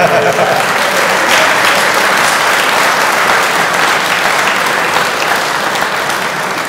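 Audience in a hall applauding, a dense steady clapping that tails off near the end.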